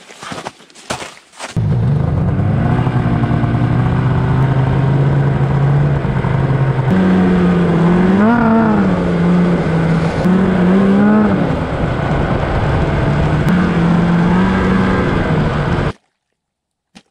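Snowmobile engine running loudly under way, its pitch rising and falling with the throttle, after a few short knocks at the start. It cuts off suddenly near the end.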